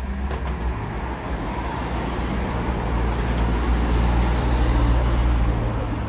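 Steady low rumble of road traffic, swelling a little around the middle and easing off near the end.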